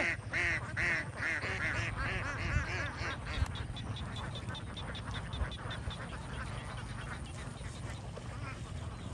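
A large flock of young domestic ducks quacking, many calls overlapping in a quick run for the first couple of seconds and then thinning out to scattered calls.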